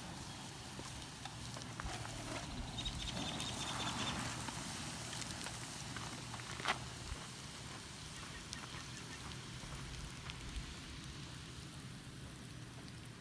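Abandoned campfire still burning, crackling steadily, with one sharp pop about two-thirds of the way through.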